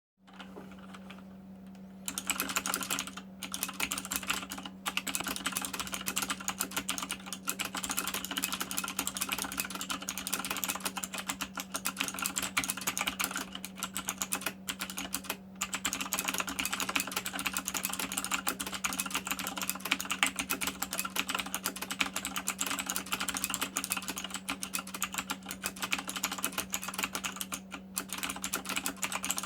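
Fast typing on a mechanical keyboard with clicky Kailh Blue switches: a dense, rapid run of key clicks starting about two seconds in, with a few brief pauses. A steady low hum runs underneath.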